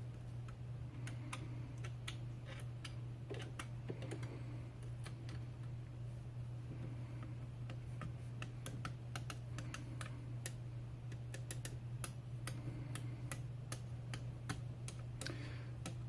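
Scattered light clicks and taps from handling a DIY e-bike battery pack being inspected by hand, irregular and busiest in the middle, over a steady low hum.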